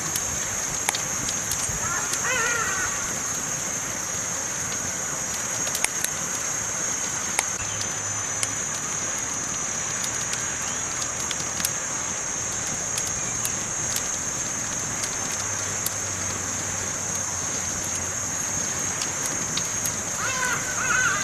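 Campfire crackling, with sharp pops scattered irregularly over a steady high-pitched hiss. A short warbling pitched call sounds about two seconds in and again near the end.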